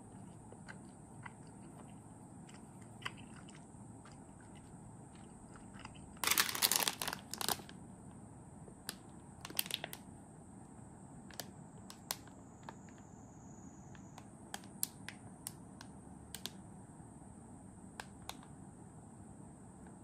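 Plastic snack packaging crinkling and rustling: one loud burst about six seconds in and a shorter one near ten seconds, with scattered small clicks and taps in between.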